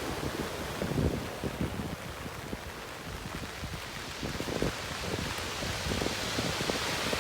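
Wind buffeting the microphone in irregular gusts over a steady outdoor hiss.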